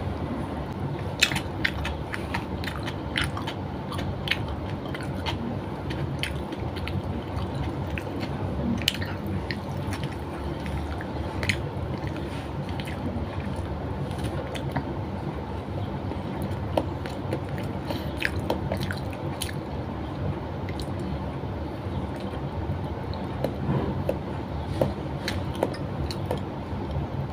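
A person eating close to the microphone, mostly a banana: chewing with many short, irregular mouth clicks, over a steady low background hum.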